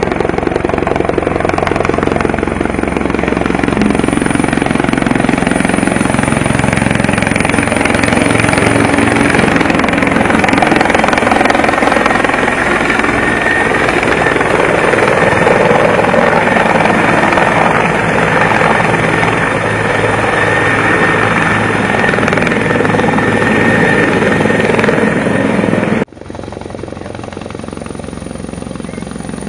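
Bell 412 helicopter hovering low and close, its rotor and turbines running loud and steady with a thin high turbine whine. Near the end the sound cuts abruptly to a quieter helicopter farther away.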